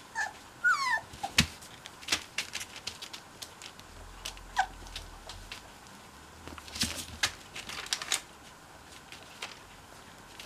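Cocker spaniel puppies giving a few brief high squeaky whimpers, falling in pitch, near the start and once more about halfway. Scattered soft clicks and rustling run throughout.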